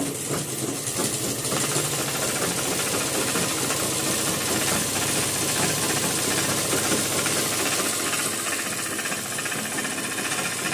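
Electric sewing machine running steadily, its needle stitching rapidly along a seam in cotton dress fabric.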